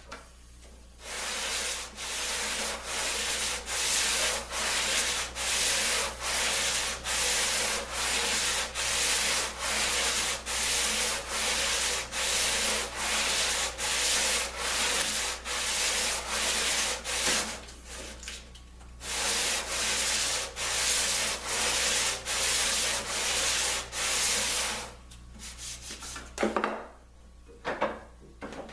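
Sandpaper rubbed by hand along the edge of a bent plywood ring, in quick back-and-forth strokes about two a second, with a short pause a little past halfway. The sanding stops near the end, followed by a couple of light knocks.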